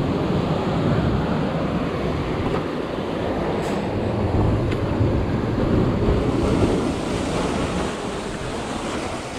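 Surf washing and breaking over rocks in a steady rush, with wind buffeting the microphone.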